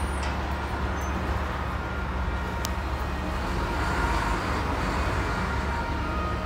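Volvo 7700 city bus heard from inside, its engine and drivetrain running with a steady low hum as the bus pulls out and gathers speed. A faint higher whine strengthens about four seconds in, and there is a single light click.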